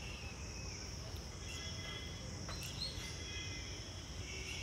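Background ambience: a steady high-pitched insect drone with short bird chirps over a low rumble, and a single faint click about halfway through.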